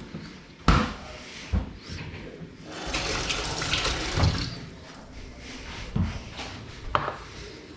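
Water running from a kitchen tap for about two seconds in the middle, with several sharp knocks and clatters before and after.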